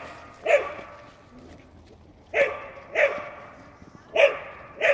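Dog barking five times: a single bark, a pause, then two quick pairs of barks.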